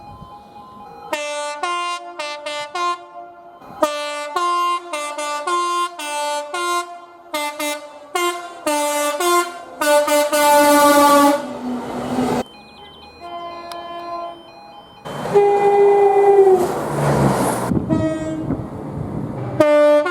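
British train two-tone horns, several in turn, sounded in rapid runs of short blasts that switch back and forth between a high and a low note. Near the end a longer horn blast sounds over the noise of a passing train.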